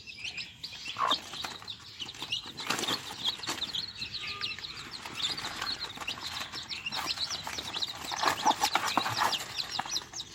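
Young chicks peeping continuously, with bursts of hen wing-flapping and scuffling, the loudest about eight to nine seconds in.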